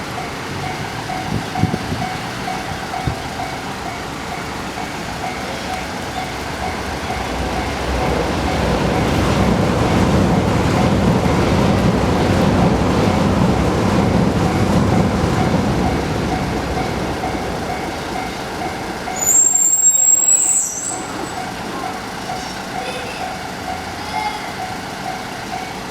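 Japanese level-crossing alarm ringing in a steady repeating rhythm while the Twilight Express charter train of JR West 24-series coaches passes, its rumble swelling for several seconds in the middle. About nineteen seconds in, a brief high-pitched squeal is the loudest sound.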